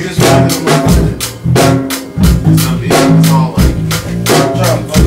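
Live drum kit and electric bass guitar jamming: a steady beat of snare, bass drum and cymbal hits under held low bass notes.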